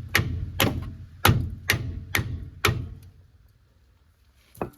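Hammer blows on a seized suspension bolt: six sharp strikes about two a second, then a pause and one more strike near the end.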